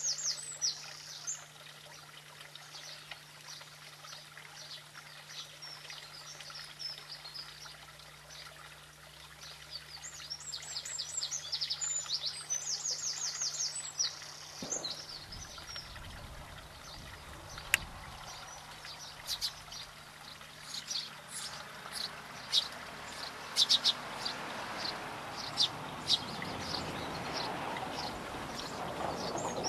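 A small songbird singing short, rapid trilling phrases, once near the start and again about ten seconds in. From the middle on, a rushing noise builds, with scattered sharp high clicks over it.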